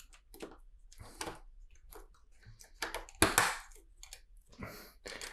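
Plastic LEGO bricks and track pieces clicking and rattling as they are handled and fitted together: a run of irregular clicks and short rustles, the loudest a little past three seconds in.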